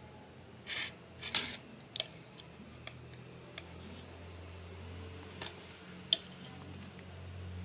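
A table knife slicing through a soft cake and knocking and scraping against the plate beneath. There are a couple of short scrapes about a second in, then single sharp clicks spaced through the rest, over a faint low hum.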